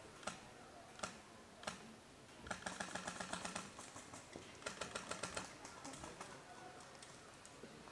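Airsoft guns firing: a few single sharp snaps, then two rapid strings of clicks at about ten a second, around two and a half and five seconds in.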